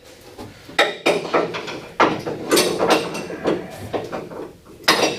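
Irregular metallic clanks and knocks of hand tools, a pipe wrench and bar, being set against a seized, torch-heated steel ball, with a sharp knock near the end.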